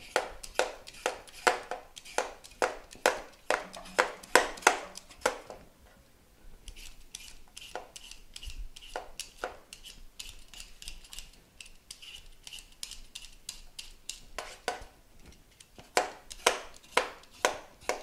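Vegetable peeler scraping the skin off a raw potato in quick repeated strokes, about two a second. The strokes pause briefly about six seconds in, run softer for a while, then grow louder again near the end.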